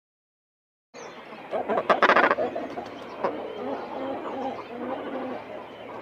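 Cormorant calls: low, guttural croaks and grunts that start about a second in, with the loudest, harshest call at about two seconds and a run of lower croaks after it.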